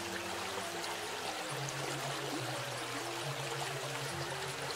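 A shallow, clear river flowing over stones, a steady rush of water. Under it, a Balinese selonding gamelan plays held low notes that change pitch every second or so.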